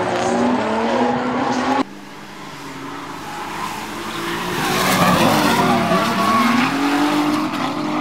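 Two drift cars, a Nissan 350Z and a Nissan Silvia, sliding in tandem: engines revving hard, rising and falling in pitch, over squealing, skidding tyres. The sound drops off suddenly about two seconds in, then builds back up to its loudest as the cars power through the next corner.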